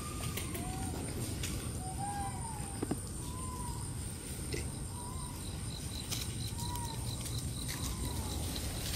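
A series of short animal calls, each rising and then falling in pitch, about seven of them spread over nine seconds. They sit over a steady low background rumble, and a faint high pulsing runs through the second half.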